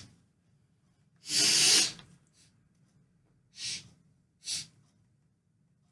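A man snorting powder up his nose: one long snort about a second and a half in, then two short sniffs, the last about a second after the second.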